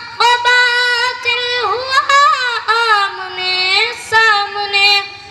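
A boy singing a naat solo without instruments, one voice holding long notes that bend and waver in pitch, with short breaths between phrases.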